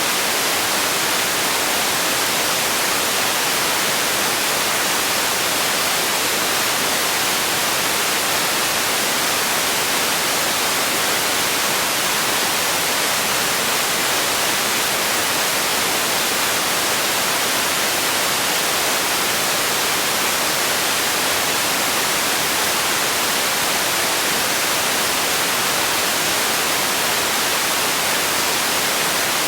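Steady synthetic white noise: an even, unchanging hiss, strongest in the high end, played as a sleep and relaxation sound.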